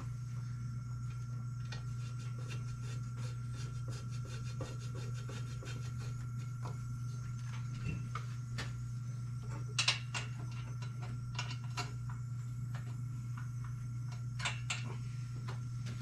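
Hand screwdriver working Phillips-head screws into an engine fan shroud: faint scraping and light clicking, with a few sharper clicks about ten seconds in and near the end. A steady low hum runs underneath.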